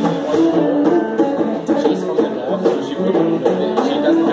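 Live Indian music: a plucked string instrument playing a flowing melody of held and sliding notes.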